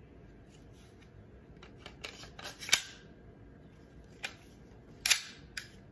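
Mechanical clicks and clacks from handling a Glock 17 Gen 4 gas blowback airsoft pistol, its slide and parts moving: a quick cluster about two seconds in, then three more single sharp clicks near the end.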